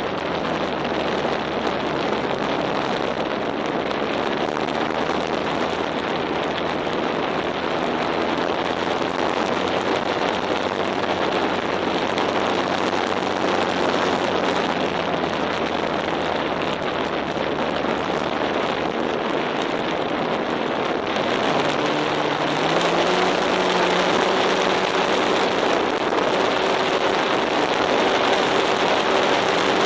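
Onboard sound of a radio-controlled E-flite Maule M7 model plane in flight: steady wind rush over the camera with the hum of its electric motor and propeller underneath. About two-thirds of the way through, the motor's pitch steps up and the sound gets a little louder.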